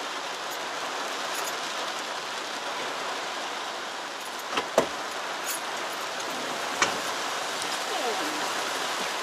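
Steady rain drumming on a car's roof and windows, heard from inside the car, with two sharp knocks about five and seven seconds in.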